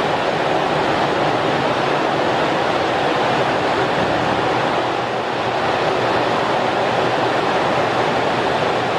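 Steady rushing underwater noise of a scuba diver breathing through a regulator and exhaling bubbles, easing off briefly about five seconds in.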